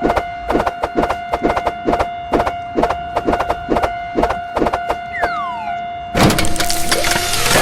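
Cartoon railroad crossing warning bell clanging rapidly over a steady ringing tone, with a falling whistle-like glide about five seconds in, then a loud noisy rush from about six seconds in.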